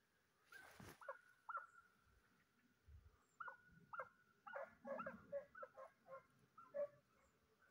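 Hunting dog barking faintly on the hillside: a few barks in the first two seconds, then a quick run of barks in the second half, as when a hound gives tongue on a trail.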